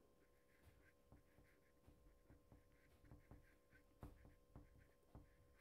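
Very faint writing with a felt-tip marker on a whiteboard: scattered soft taps and short squeaks of the marker tip, the clearest about four seconds in, over a faint steady hum.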